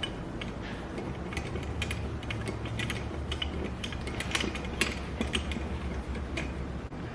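Scattered small clicks and light metal scraping as a bolt is threaded by hand through a handle jig's guide into a drawer handle.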